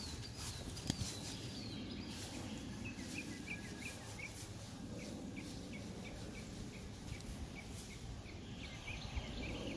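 Birdsong: a bird repeats a short chirp about two to three times a second, after a few quick falling high notes, over a faint outdoor rumble.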